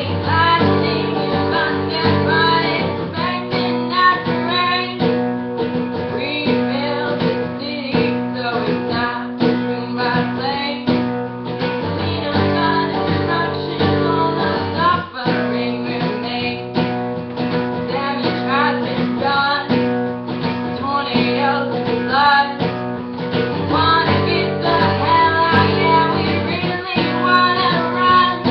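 A woman singing a folk song while strumming an acoustic guitar, solo voice and guitar without a break.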